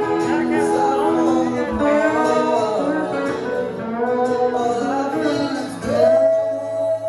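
Live country song: guitar with a man singing, and a long held note about six seconds in.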